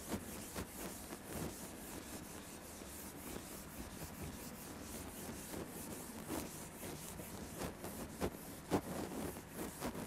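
Whiteboard eraser rubbing back and forth across a whiteboard in repeated wiping strokes as the board is cleared, with a few stronger strokes in the second half.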